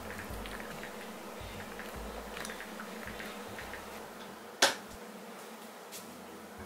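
Puppies mouthing and licking each other: faint scattered small wet clicks over a steady low hum, with one sharp click about four and a half seconds in.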